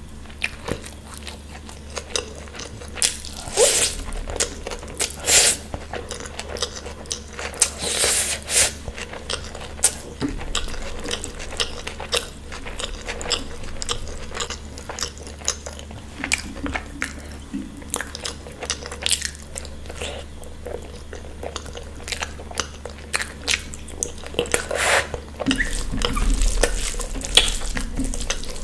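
Close-miked eating: biting, crunching and chewing, in irregular mouth clicks and short smacks, with a few louder bites.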